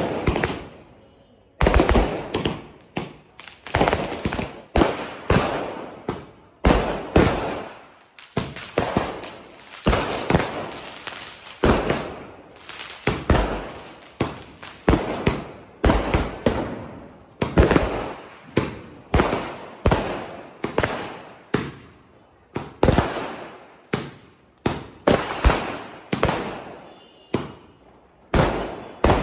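Multi-shot aerial firework cake (a 'sky shot') firing a steady volley of sharp bangs, about one to two a second, each trailing off.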